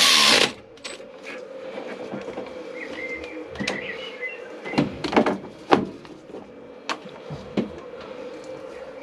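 A cordless drill stops about half a second in, followed by scattered metallic clinks and knocks of tools and engine parts being handled, loudest a little past the middle. Birds chirp faintly in the background.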